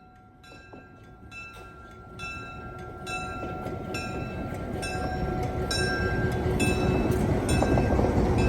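A train approaching, its rumble building steadily louder, with a ringing strike repeating about every two-thirds of a second over it.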